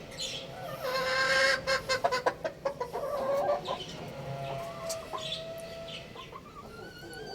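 Chickens clucking and calling, loudest about a second in, with a run of sharp clicks and higher chirps after it.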